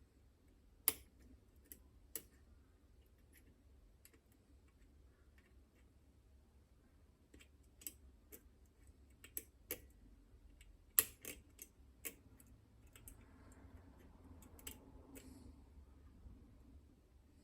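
Irregular clicks and ticks from lock picks working the levers of a Chubb Detector lever lock. The sharpest clicks come about a second in and around eleven seconds, with a soft rustle of handling a few seconds before the end.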